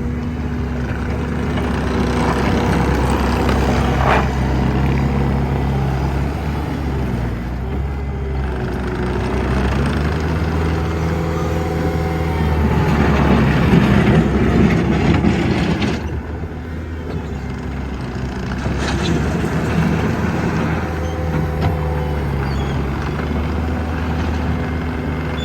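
Bobcat T750 tracked skid steer's diesel engine running as the machine is operated, its pitch stepping up and down with engine speed and load, with a hydraulic whine that comes and goes. The sound grows loudest and noisiest for a couple of seconds a little past the middle.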